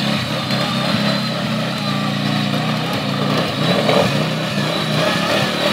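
Side-by-side UTV engine running under load and revving up and down as the buggy works its way out of a muddy ditch on a tow line.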